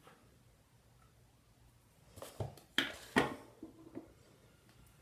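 Quiet for about two seconds, then a cluster of short rustles and knocks from objects being handled close by, the loudest pair just after the three-second mark.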